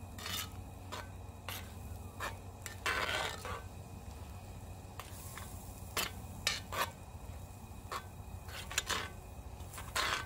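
Spoon stirring chili in a cast iron Dutch oven, scraping and clinking against the pot at irregular intervals, with a longer scrape about three seconds in and another near the end.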